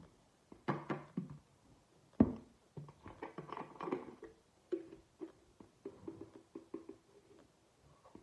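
Large plastic Listerine mouthwash bottle being handled and its cap twisted off: one sharp knock about two seconds in, then a run of small clicks as the cap turns.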